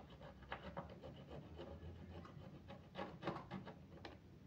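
A hand-held saw blade cutting through a motorcycle's rear mudguard in short, irregular rasping strokes, a little louder around three seconds in.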